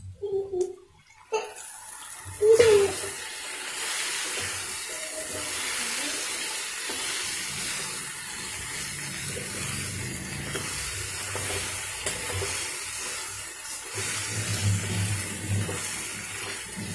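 Brinjal pieces and soaked dried mango (mango vathal) sizzling in hot oil in a steel kadai and being stirred with a spatula. A few knocks come first; the sizzling starts suddenly about two seconds in and then goes on steadily.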